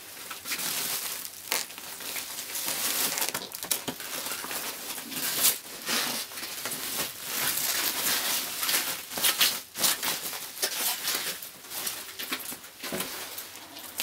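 Protective plastic bag around a flat-screen TV crinkling and rustling continuously as it is handled and pulled off, with many small sharp crackles.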